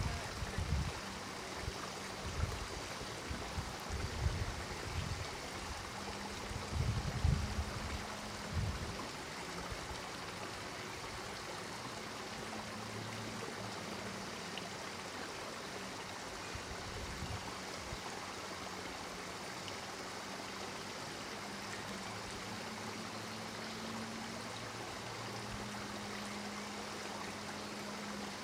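Steady rushing noise like running water, with low rumbling thumps through the first nine seconds and a faint low hum underneath.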